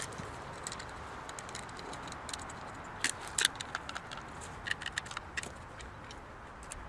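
Scattered light metallic clicks and clinks of small parts being handled, in two clusters about three and five seconds in, over a steady background hiss.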